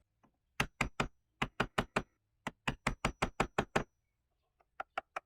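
A wood chisel being struck with a hammer in quick runs of taps, about five a second, cutting a shallow mortise into the door edge for a lock's latch plate.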